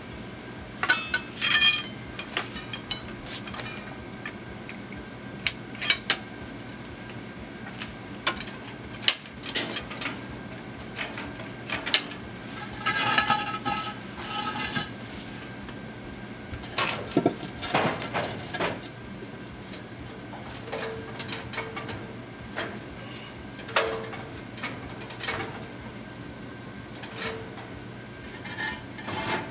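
Scattered metal clanks and clinks of steel parts and tools being handled and knocked together, some ringing briefly, over a steady low hum.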